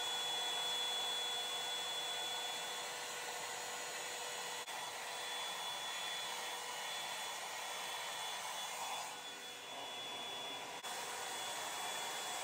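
Revlon One-Step hair dryer and volumizer brush running, a steady rush of air with a faint steady whine, dipping briefly about nine seconds in.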